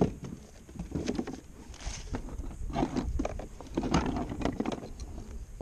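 Irregular knocks, taps and scrapes of handling aboard a plastic kayak: the rubber-mesh landing net and the trout in it being moved about against the hull.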